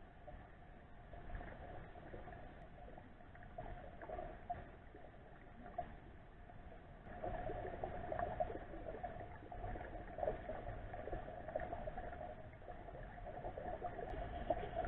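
Muffled underwater river noise picked up through a waterproof camera housing: a low rumble with steady fine crackling, louder from about seven seconds in.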